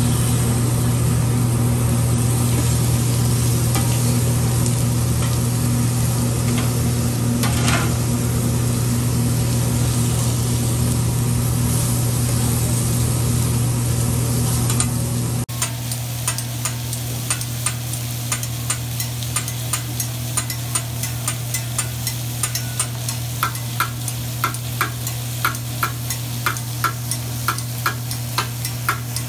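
Chicken, shrimp and vegetables sizzling on a hibachi teppanyaki griddle over a steady low hum. About halfway through the sound changes abruptly, and regular clicks, about two a second, run on over the sizzle.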